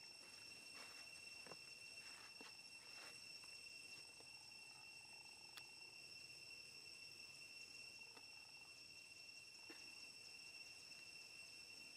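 Faint, steady, high-pitched insect chorus, with a few soft clicks and rustles.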